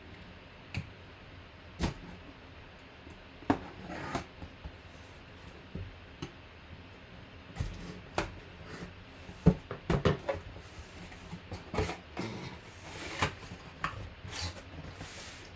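A sealed cardboard box and its packaging being handled and opened: scattered knocks, scrapes and rustles.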